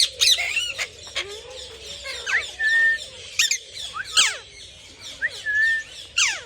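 Many caged birds, parrots among them, calling over one another: sharp screeches that sweep steeply down in pitch, mixed with a couple of short level whistles.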